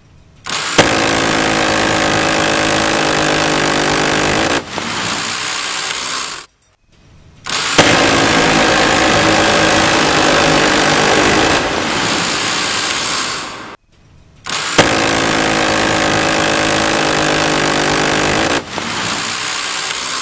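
M134 Minigun, a six-barrel electrically driven Gatling gun, firing three long bursts of about six seconds each, its very high rate of fire merging into one continuous buzz. Each burst starts sharply after a short lead-in and drops in loudness shortly before it stops.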